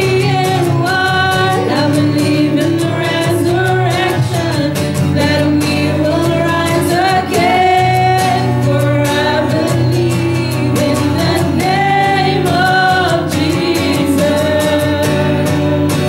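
Live worship song: women singing a flowing melody over a steadily strummed acoustic guitar.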